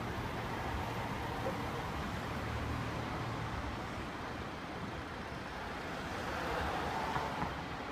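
Steady vehicle running noise, a low even rumble.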